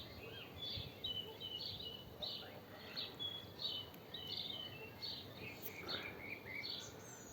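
Birds singing in bush: a busy run of short, high chirps and whistles, several a second, over a faint background hiss.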